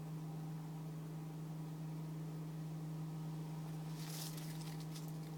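A steady low hum, with a short burst of rustling and scratching about four seconds in.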